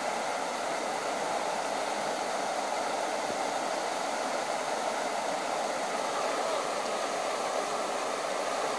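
Water rushing steadily over the rocks of a shallow river riffle.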